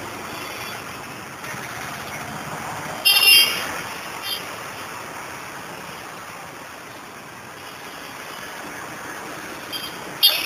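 Steady street traffic noise, with a brief loud, high-pitched sound about three seconds in.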